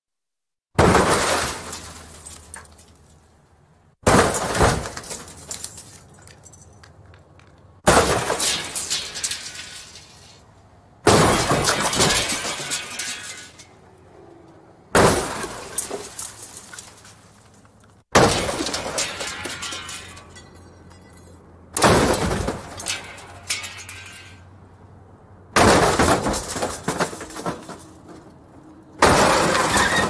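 Car crash sound effects: nine sudden crashes, one every three to four seconds, each a hard impact with shattering glass and debris that rattles and tinkles as it dies away.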